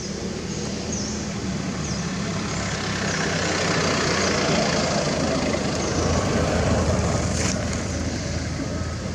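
A motor vehicle engine hums steadily, with a noisy swell through the middle as a vehicle passes and fades. Faint short high chirps repeat, and there is one sharp click near the end.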